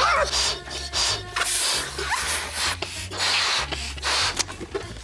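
Two people blowing hard into rubber party balloons: repeated breathy rushes of air, one after another. Background music with a steady bass line plays underneath.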